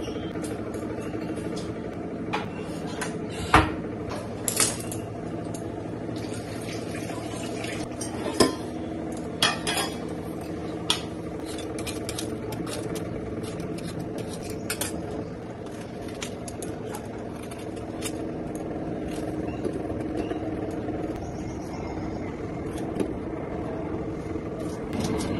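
Kitchen utensils and dishes clinking and clanking as someone works at a counter: scattered sharp knocks, the loudest a few seconds in, over a steady low hum.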